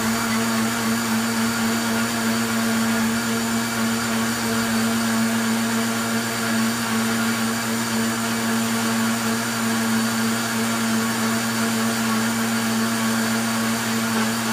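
Arno countertop blender running at a steady speed, blending a jug of milk mixture with a constant motor whine over a hiss.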